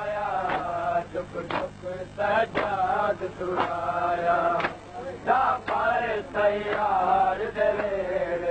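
A man chanting a noha, a Shia lamentation, in a drawn-out melodic voice. A sharp beat falls about once a second beneath it.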